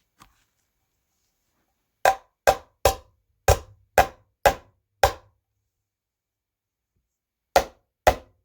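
A series of sharp, hollow knocks: seven in quick succession at about two a second, then a pause and two more near the end.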